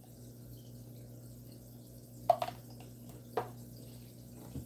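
Quiet room tone with a steady low hum, broken by a few short clicks, the loudest about two seconds in and another about a second later.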